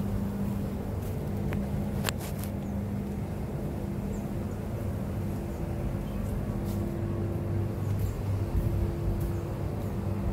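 Steady low engine hum of motor traffic, with a couple of sharp clicks about two seconds in.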